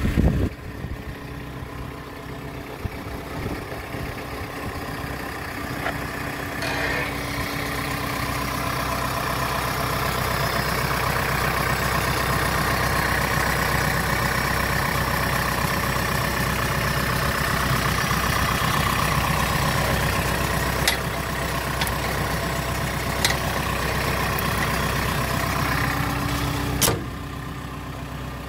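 Diesel engine of a JCB JS210 LC tracked excavator idling, a steady drone that grows louder through the middle. A few sharp knocks break in, most of them in the second half.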